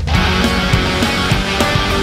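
Loud rock music with guitar and drums, the full band coming in at the start.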